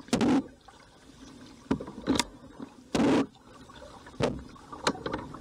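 Kayak paddle strokes: the blades splash into the water in separate strokes, the two loudest about three seconds apart, with smaller splashes and sharp knocks in between.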